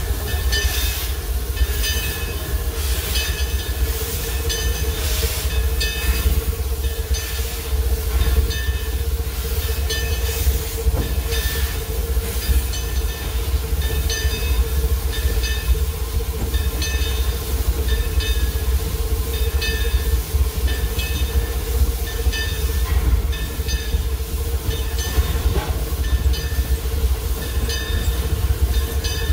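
Steam locomotive running, heard from inside its cab: a heavy low rumble with a steady hum, and a regular beat of exhaust chuffs that is plainest in the first half.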